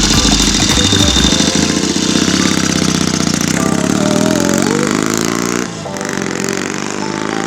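Rebuilt 1967 Triumph 650 parallel-twin motorcycle engine, bored out with a 750 kit, running and being revved, its pitch climbing over a couple of seconds midway.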